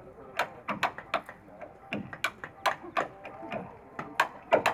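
A hammer striking a wood chisel as it cuts into a timber plank: sharp, irregular taps, about three a second, some in quick pairs.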